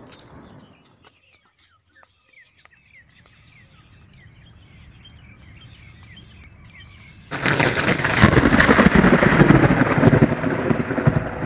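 Faint bird chirps, short falling notes repeated every so often. About seven seconds in, a loud, rough rumbling noise cuts in suddenly and goes on.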